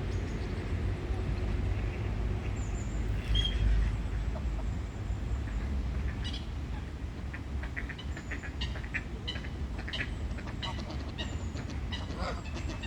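Waterfowl at a pond giving scattered short calls and chirps over a steady low rumble.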